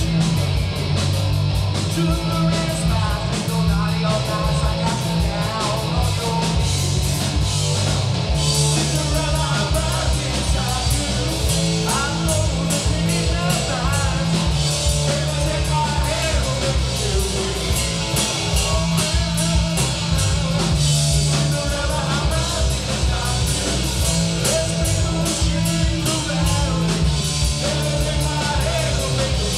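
Live rock band playing, recorded off the mixing desk: electric guitar over drum kit and low bass notes, the cymbals coming in heavier about eight seconds in.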